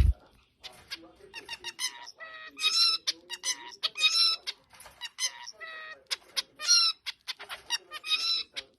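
A bird giving a rapid run of short, pitched calls broken by clicks, with longer calls about three seconds in, four seconds in, and near the end.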